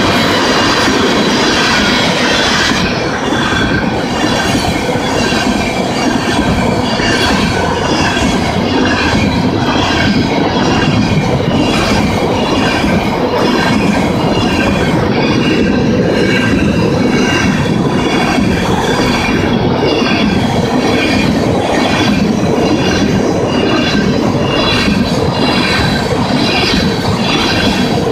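Tank cars of a freight train rolling past close by: a steady rumble of steel wheels on rail, with a rhythmic clatter over the rail joints and a high, wavering metallic squeal from the wheels.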